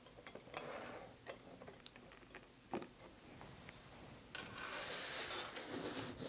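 Tarot cards being handled: scattered light clicks and taps, then, after about four seconds, a couple of seconds of dry card-on-card rustling or sliding.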